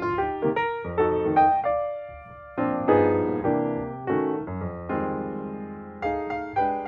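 Background piano music: a gentle tune of struck notes and chords that ring and fade.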